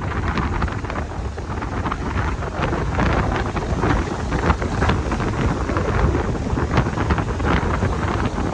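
Strong gusty wind buffeting the microphone, a constant rough rumble with crackling gusts throughout.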